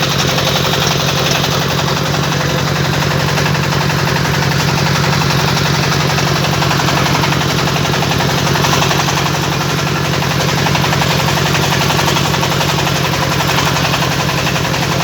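Brick-making machine running steadily, with a loud low hum under a fast, even rattle that holds without a break.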